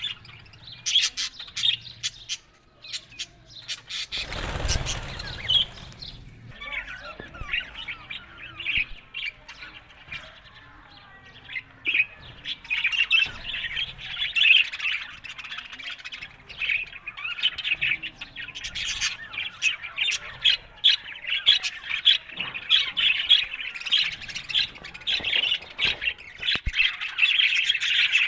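Budgerigars chattering continuously, a busy stream of warbles, chirps and squawks. About four seconds in, a brief burst of noise rises over them for a second or two.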